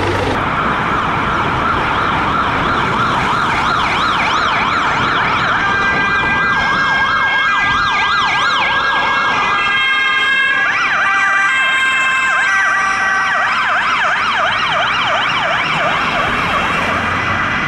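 Swedish emergency-vehicle sirens sounding together: a fast rising-and-falling wail about three times a second, overlapped from about ten seconds in by a stepped tone jumping between fixed pitches.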